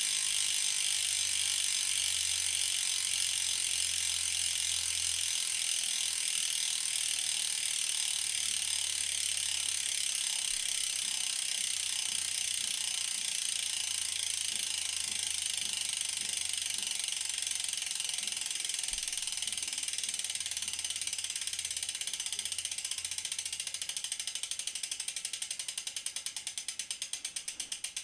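Vision Trimax 35 rear hub's freehub pawls ratcheting as the wheel coasts, after 7000 km of use: a steady, high-pitched clicking buzz that slows into separate clicks near the end as the wheel loses speed.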